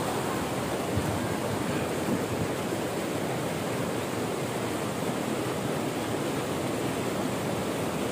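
Steady rushing of water flowing through a concrete channel and over a small spillway.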